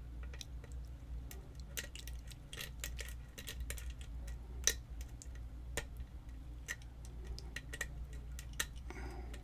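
A lock pick and tension wrench clicking irregularly against the pins of a pin-tumbler lock as it is picked, a light tick every second or so with one sharper click about halfway through, over a steady low hum.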